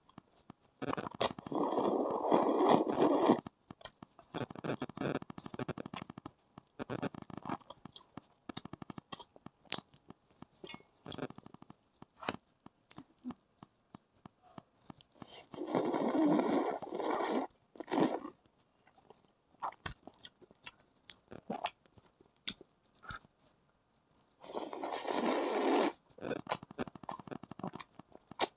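Eating noodles: three loud, drawn-out slurps, with chewing and small mouth clicks between them.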